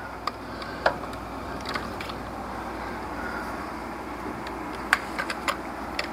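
Scattered sharp metallic clicks and taps of hand tools working on engine bolts, a few in the first two seconds and a quick cluster about five seconds in, over a steady background hiss.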